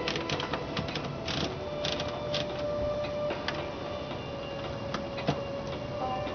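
Remington Standard manual typewriter being typed on: typebars striking in irregular clacks, quicker in the first couple of seconds and sparser after.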